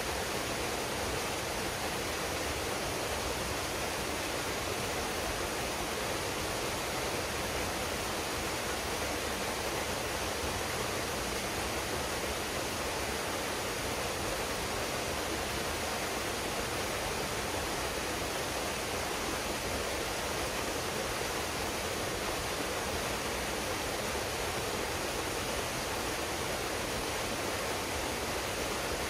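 Big waterfall pouring into a pool: a steady, unbroken rush of falling water.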